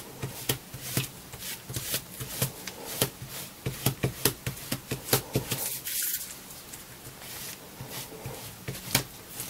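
Spatula scraping in short strokes over the flesh side of chrome-tanned leather, smoothing down the nap under a fresh coat of Tokonole. The strokes come about two or three a second and thin out after about five seconds.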